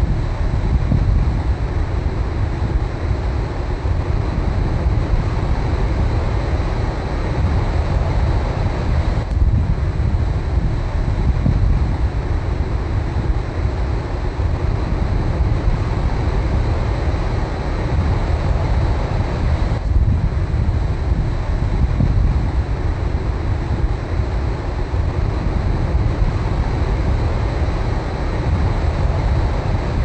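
Ocean surf breaking and washing over the shallows around a rock, a steady rush of water with a deep rumble of wind buffeting the microphone.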